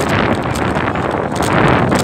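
Steady wind rush on the microphone of a moving motorcycle, with the engine and road noise underneath.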